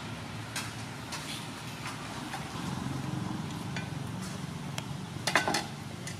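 Water at a rolling boil in a large aluminium pot, a steady low bubbling rumble with scattered light clicks. A brief clatter about five seconds in.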